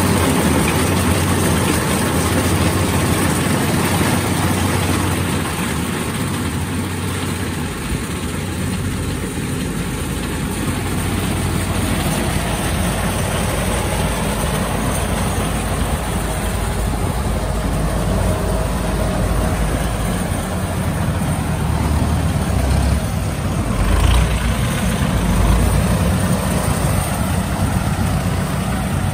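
Kubota DC-60 combine harvester's diesel engine and machinery running steadily under a constant drone, with a couple of heavier low thumps a little after twenty seconds in.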